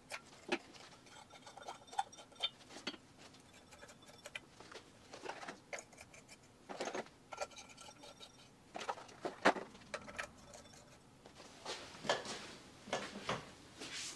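Scattered small clicks, scrapes and light clinks from hands working on a ceiling fan's light kit, handling its bulbs and glass shades. Some clinks ring briefly.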